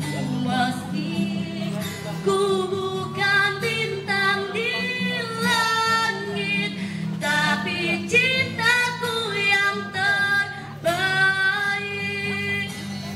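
A woman singing an Indonesian love song into a microphone, drawing out long held notes that bend in pitch, over a steady low accompaniment.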